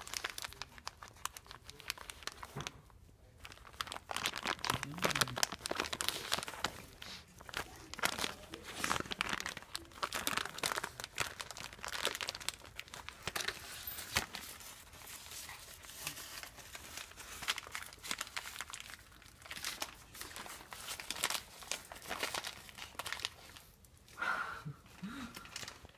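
Crinkly plastic bag rustling and crackling irregularly as a dog noses around with its head pushed inside it.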